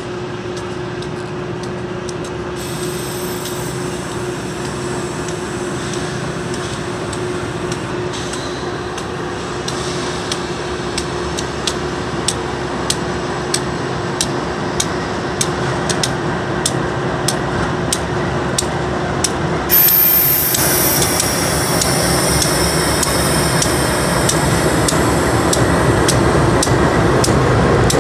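Diesel locomotives of a long freight train approaching and passing close by, led by a GE AC4400CW, the sound growing steadily louder. A steady tone runs underneath, and from about eight seconds in there is an even ticking of about two a second. About twenty seconds in the sound jumps louder and brighter as the lead locomotive draws level.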